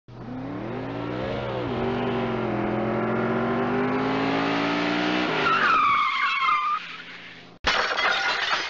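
Car crash sound effect: an engine revving up for about five seconds, then tyres screeching for about a second, then a sudden loud crash near the end.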